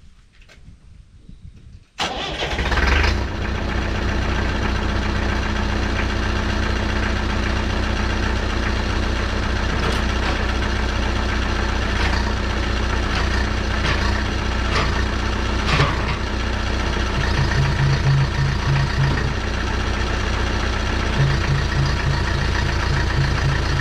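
Tractor engine starting about two seconds in, then running steadily at idle. A pulsing drone joins in twice in the second half.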